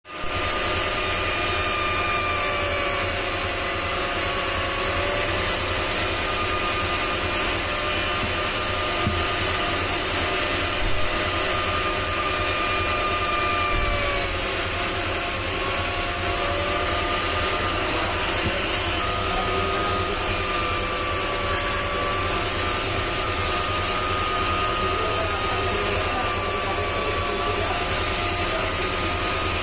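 Jeweller's handheld rotary tool running steadily at high speed, its small bit cutting a pattern into a gold pendant; the motor's whine wavers slightly in pitch as the bit is pressed against the metal.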